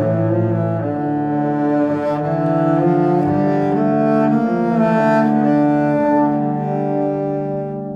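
Background music with sustained bowed string notes in a low register, cello-like, changing pitch every second or so.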